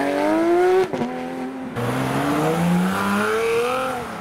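Porsche 991 GT3's naturally aspirated flat-six revving up as it accelerates away, its pitch climbing before it breaks off about a second in. A second Porsche 911 then accelerates, its engine note rising steadily for about two seconds before falling away near the end.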